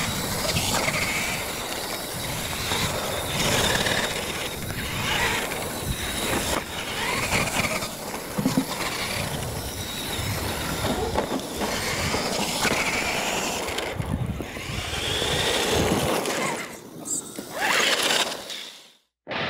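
Radio-controlled electric scale trucks racing on dirt, their motors whining up and down with the throttle over a steady noise, with a few sharp knocks; the sound fades out near the end.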